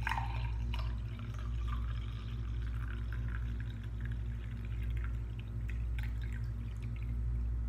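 Hot liquid poured in a thin stream from a small metal pot into a drinking glass, trickling and splashing with small ticks as the decoction is strained. A steady low hum runs underneath.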